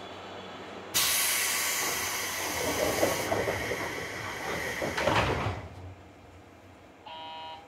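Pneumatic doors of a JR West Series 201 commuter train closing: a sudden loud hiss of air about a second in, then the doors sliding and thudding shut around five seconds in. A brief tone sounds near the end.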